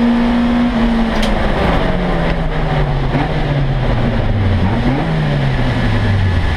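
Race car engine heard from inside the cockpit, holding steady high revs, then dropping as the car slows from about a second in, with a short rise in revs a little before the end and settling lower.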